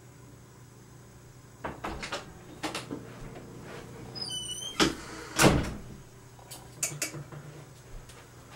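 A series of knocks and thumps, the loudest about five and a half seconds in, with a brief high-pitched chirp just after four seconds, over a steady low hum.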